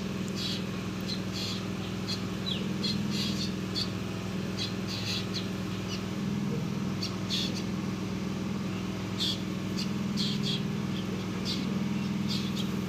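Birds chirping: short, high chirps at irregular intervals, over a steady low hum.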